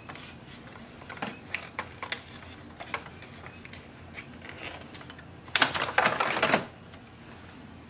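Plastic paper-width guides of an inkjet printer's paper tray clicking faintly as they are slid into place, then the loaded tray pushed into the printer with a louder plastic sliding rattle about five and a half seconds in, lasting about a second.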